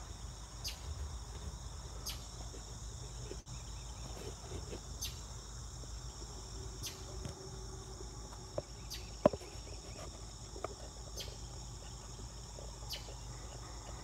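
Evening insect chorus: a steady high-pitched trilling, with a short, sharper chirp repeating about every second and a half. A single sharp click about nine seconds in.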